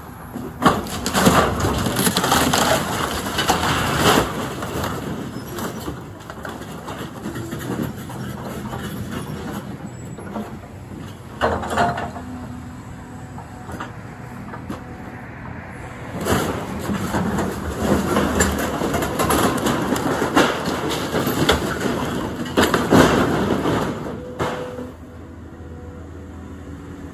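Caterpillar excavator's engine running while its bucket and thumb tear down a building, with loud spells of breaking wood and clattering sheet metal during the first six seconds, once briefly around twelve seconds, and again from about sixteen to twenty-four seconds.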